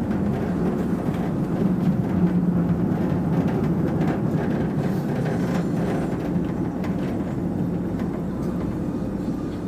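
Manila LRT Line 1 light-rail train running along elevated track, heard from inside the cab: a steady rumble of wheels on rail with a low hum running under it.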